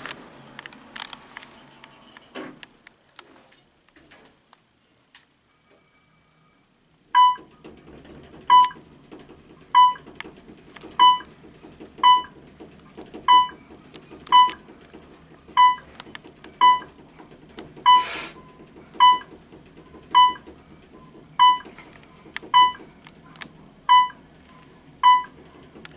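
Elevator car travelling with its floor-passing tone: a short clear beep about every second and a bit, one per floor, over the low steady hum of the moving car. The beeps start about seven seconds in, after a few soft clicks, and a brief rustle comes about two-thirds of the way through.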